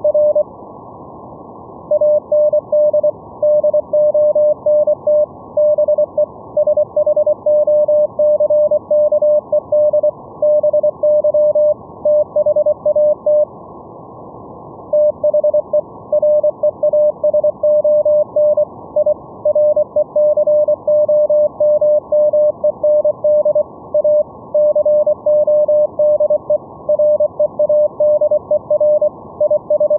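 Morse code (CW) sent as a single steady-pitched tone keyed on and off in dots and dashes, heard through an SDR receiver's audio over steady band hiss. The keying breaks off twice, just after the start and again around the middle, then resumes.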